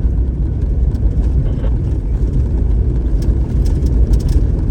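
Off-road vehicle driving fast on a dirt trail: a steady low rumble of engine and tyres on dirt, with a few faint ticks near the end.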